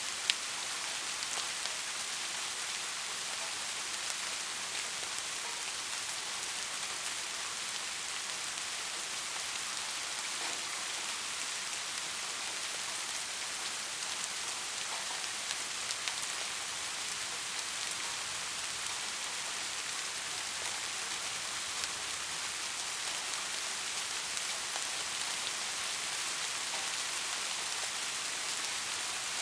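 Steady rain falling on a surface, an even hiss with scattered individual drop ticks, one sharper tick just after the start.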